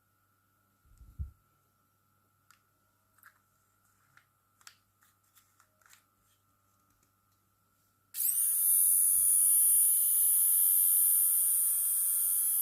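Light handling clicks and a soft knock, then about eight seconds in the VGR V321 egg-shaped electric shaver's motor switches on suddenly and runs with a steady high-pitched buzz.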